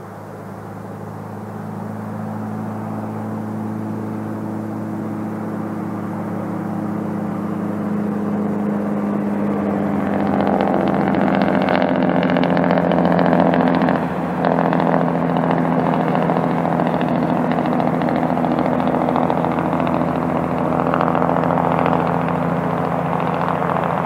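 Diesel locomotives of an approaching freight train: a steady, deep engine drone that grows louder throughout. From about ten seconds in, a rising rushing rumble joins it.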